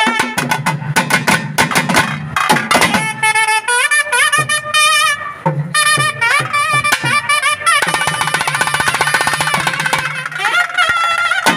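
Naiyandi melam ensemble playing: a nadaswaram plays a wavering, heavily ornamented melody over rapid thavil drum strokes, which come thickest in the first few seconds and again in a fast run about eight seconds in.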